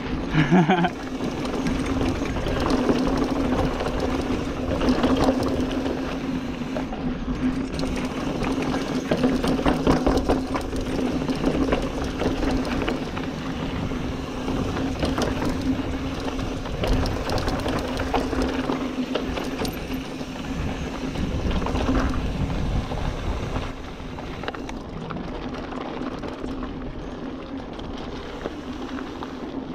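2021 Giant Trance X mountain bike rolling fast down a dirt trail: tyres rumbling and crunching on loose dirt, with frequent rattles and knocks from the bike over bumps and a steady buzz from the rear hub as it coasts.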